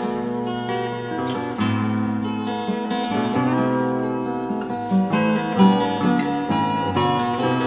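Instrumental progressive rock: several acoustic guitars picking and strumming over moving bass notes.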